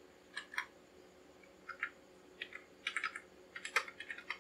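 Computer keyboard being typed on: separate keystrokes at an uneven pace with short pauses, a couple near the start and closer together in the second half.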